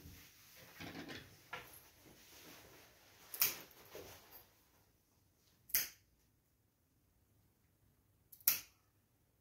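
Small pet nail clippers snipping through a cat's claws: three sharp snaps, about two and a half seconds apart.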